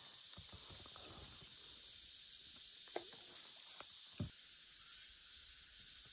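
Steady, faint high-pitched hiss of outdoor background noise, with a few faint short knocks about three and four seconds in.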